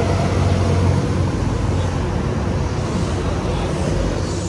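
Large coach bus's diesel engine running with a steady low hum, under a wash of street noise.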